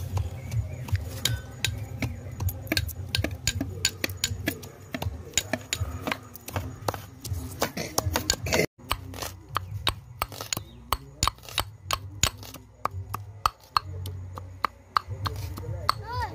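Garlic being pounded with a pestle in a small metal mortar: a fast, uneven run of sharp knocks, broken off briefly about halfway through.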